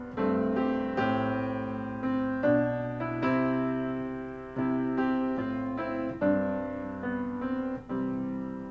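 Piano music: notes and chords struck one after another, each ringing out and dying away.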